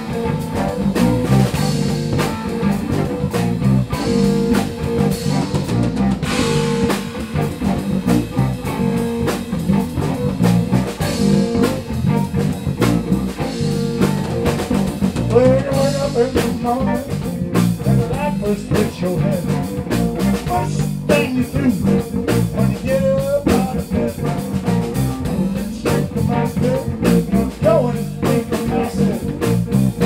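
Live blues-rock band playing: electric guitar, bass guitar, a Pearl drum kit and keyboards, with a steady driving beat.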